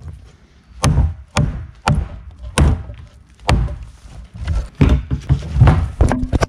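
Large machete-style knife chopping into an old weathered wooden beam: a series of sharp blade strikes into the wood, about ten in all at uneven intervals, coming closer together near the end.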